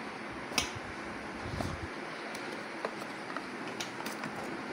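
Smartwatch's cardboard box being opened by hand: a sharp cardboard click about half a second in, then a few light ticks and faint handling rustle as the lid comes off.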